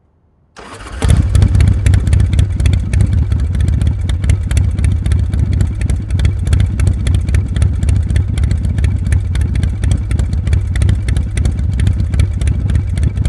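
A motorcycle engine running loudly and steadily, a deep drone overlaid with rapid clattering ticks. It starts suddenly about half a second in.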